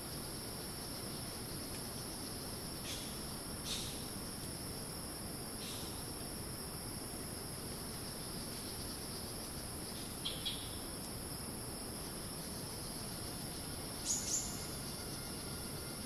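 Steady high-pitched drone of rainforest cicadas and other insects, with short bird chirps cutting in a handful of times, the loudest pair near the end.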